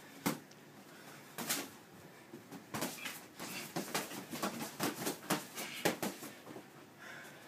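Punches landing and feet scuffling in a sparring bout: a scatter of sharp slaps and thuds, coming thick and fast from about three to six seconds in.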